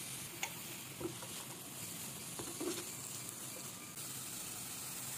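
Chopped onions and cumin seeds sizzling in hot oil in a frying pan: a steady frying hiss with a few faint clicks.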